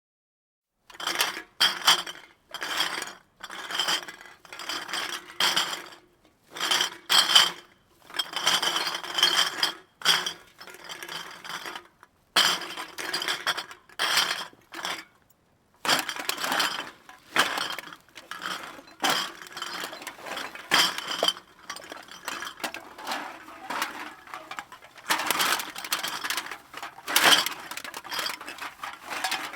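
Empty glass bottles shaken together, clinking and rattling in repeated bursts with short pauses between.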